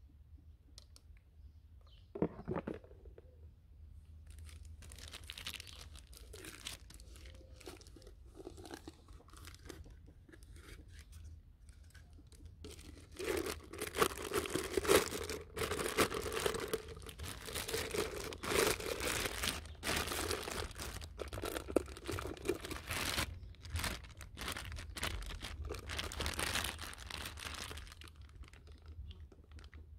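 Thin clear plastic bag crinkling and rustling as it is unwrapped from a plastic blender beaker, in irregular crackles that grow louder and busier about halfway through. A single knock about two seconds in.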